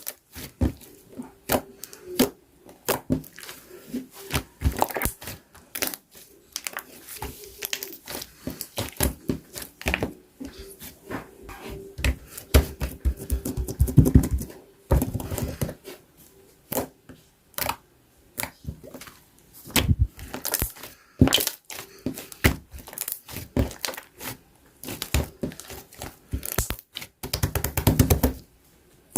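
Golden and pink slime being kneaded and squeezed together by hand, giving sticky, irregular pops and clicks, with spells of fast crackling about halfway through and again near the end.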